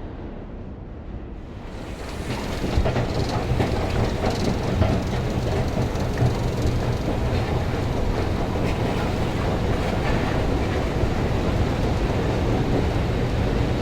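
New York City subway train running on the rails, a steady rumble with many sharp clicks of wheels on track. The noise swells about two seconds in and then holds loud.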